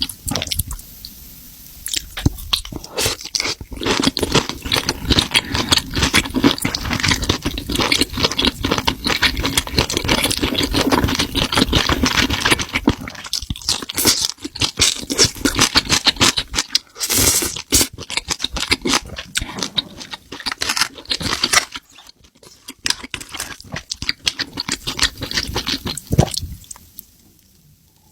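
Close-miked chewing and crunching of spicy seafood: dense runs of crisp crunches and mouth sounds, broken by a few short pauses.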